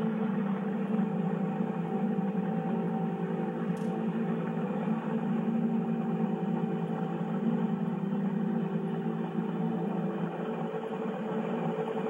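A steady low hum.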